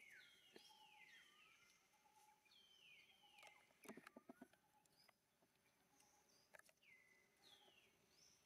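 Faint, high-pitched squeals from a baby long-tailed macaque, each sliding downward in pitch, about seven of them at uneven intervals. A few short soft knocks come about halfway through.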